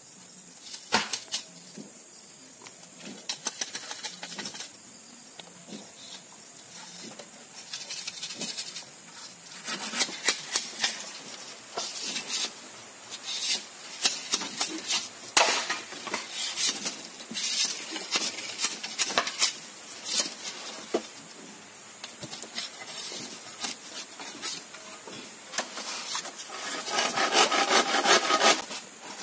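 A knife blade scraping and shaving along a thin strip of bamboo in irregular strokes, with a fast, loud run of strokes near the end.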